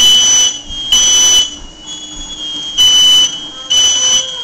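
Household smoke alarm sounding its loud, high-pitched three-beep pattern: half-second beeps about a second apart, with a pause of about a second and a half between groups.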